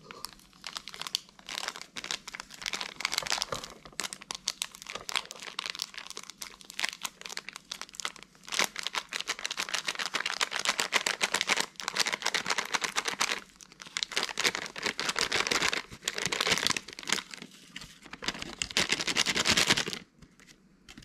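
A thin plastic bag of bath bomb powder crinkling and rustling continuously as hands squeeze and shake it empty into a bowl. The crinkling stops about a second before the end.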